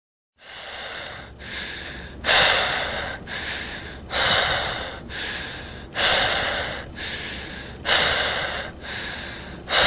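Heavy, rasping human breathing in a slow even rhythm, starting about half a second in: a loud breath about every two seconds with a softer one between, like drawn-in and pushed-out breaths.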